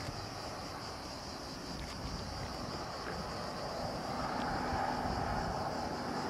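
Wind buffeting the microphone over the distant rumble of an MLW diesel locomotive hauling a freight train, which grows a little louder about four seconds in. A steady high hiss runs underneath.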